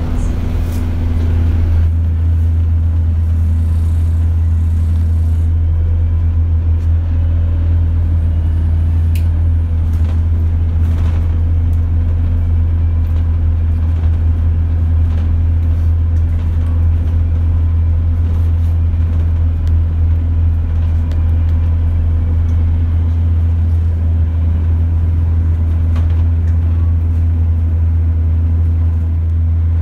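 Alexander Dennis Enviro200 MMC diesel bus heard from inside the passenger saloon: a steady, loud low engine drone with occasional faint rattles and clicks.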